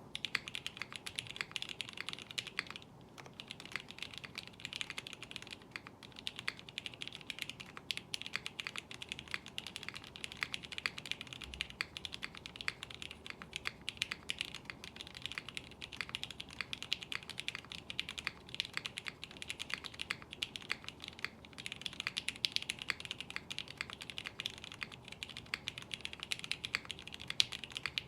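Fast continuous typing on a custom 65% mechanical keyboard: a 3D-printed Bakeneko65 case with an aluminium plate on an O-ring gasket mount, lubed Vint Black switches and GMK keycaps. There is a brief pause about three seconds in.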